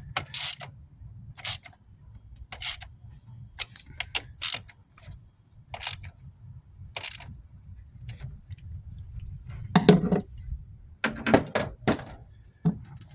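Metal hand tools clicking and clinking in short separate strokes about once a second, with a few heavier clanks near the end, under a steady low rumble.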